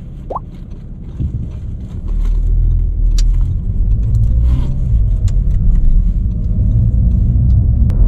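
Road and engine rumble inside a moving car's cabin, growing louder about two seconds in. A brief rising squeak near the start and a few light clicks sound over it.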